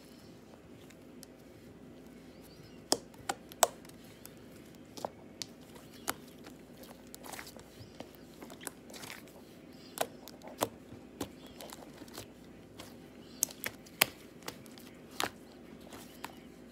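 Hands squishing and stretching homemade slime, giving irregular sharp pops and clicks, about one or two a second, over a faint steady hum.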